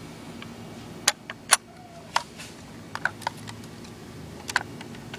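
Scattered light clicks and taps from a 1:18 diecast model car being handled, its small parts such as the opening trunk lid knocking, about a dozen separate clicks over a steady low hum.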